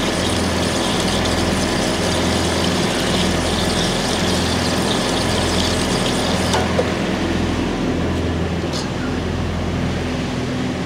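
Kenworth cab-over road-train prime mover's diesel engine idling steadily, with a hiss above it that eases off about six and a half seconds in.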